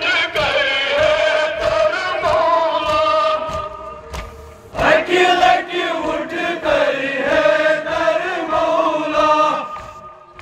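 Kashmiri noha, a Muharram lament, chanted by a group of male voices in long drawn-out phrases, with a brief break about four seconds in.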